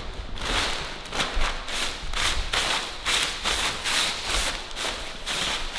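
Paper rubbed and wiped over a wet surface to dry it, in quick repeated strokes, about three a second.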